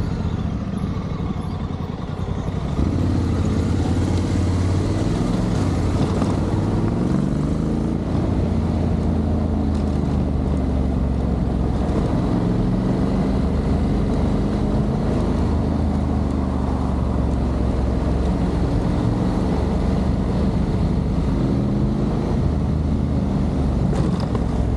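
Motorcycle engine running under way, its pitch rising and falling with throttle and gear changes; it gets louder about three seconds in as the bike pulls away harder.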